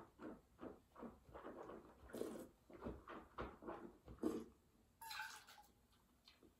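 A wine taster draws air through a mouthful of red wine in a quick run of short slurping, gurgling strokes, then spits it into a metal spittoon just after five seconds.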